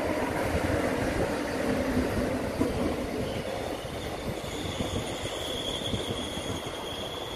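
Electric-locomotive-hauled Mugunghwa passenger train rolling past, a steady rumble of wheels on rail. About halfway through, the wheels start a high, steady squeal that grows stronger toward the end.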